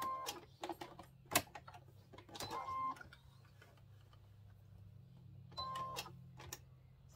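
Sewing machine stitching in three short bursts about two and a half seconds apart, its motor whining, with a few sharp clicks between the first two bursts: backstitching at the start of a top-stitched seam.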